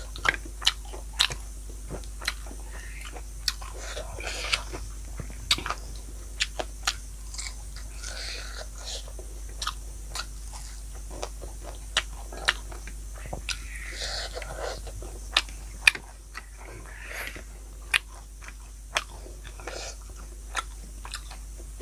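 Close-miked eating: chewing with frequent sharp, irregular crunches and wet mouth clicks, typical of biting into fried small fish.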